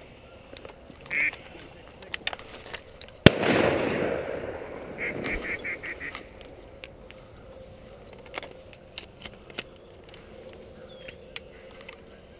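A single shotgun shot about three seconds in, the loudest sound, its boom dying away over a couple of seconds. Duck quacks come once before the shot and as a quick run of about five soon after it.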